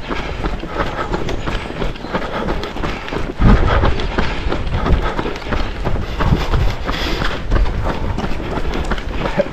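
Footfalls of someone running on a treadmill, a dense run of knocks over the machine's low rumble, getting louder about three and a half seconds in.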